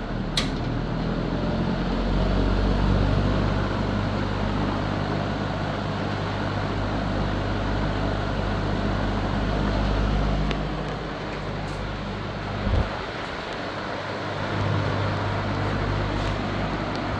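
Artic Aire box fan running on high speed: a steady rush of air over a low electric motor hum. A few light clicks and one low thump about two-thirds of the way through.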